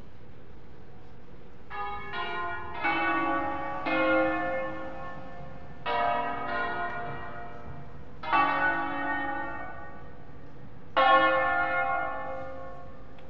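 The seven-bell peal of Cremona Cathedral, tuned in A-flat major, rung in concert to signal the start of a solemn service. The bells come in about a second and a half in and strike in small clusters with gaps of one to two seconds. Each stroke is left to ring and fade, and the loudest stroke comes near the end.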